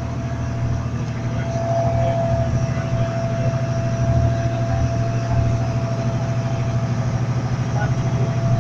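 Fishing boat's engine running steadily while under way: a low, even drone with a thin steady whine above it.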